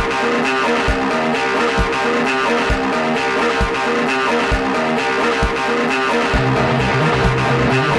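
Guitar-led intro theme music over a steady beat, with a low thump a little under once a second. A bass line comes in about six seconds in.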